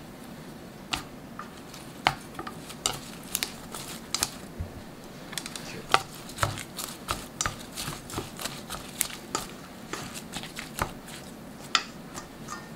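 Wooden chopsticks stirring cut vegetables into a chijimi (Korean pancake) batter in a stainless steel bowl, clicking and knocking against the metal at an irregular pace. The clicks come thickest in the middle of the stirring.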